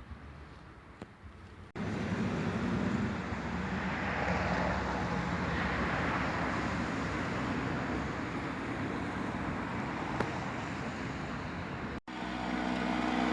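Street traffic noise: a steady rush of passing cars that starts abruptly about two seconds in, then cuts to a steady low engine hum near the end.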